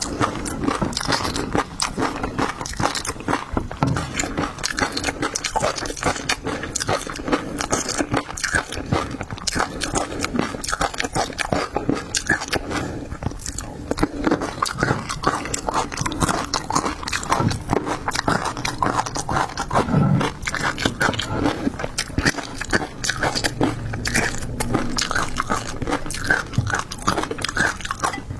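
Close-miked eating of seafood: continuous biting and chewing with crunching and wet mouth clicks.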